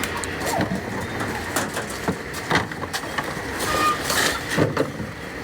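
Hand-picking and sorting peaches: a scatter of short rustles and light taps as the fruit and leaves are handled.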